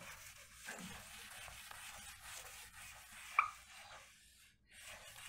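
Faint whiteboard eraser rubbing across a whiteboard, wiping off marker writing, with one short louder sound about three and a half seconds in.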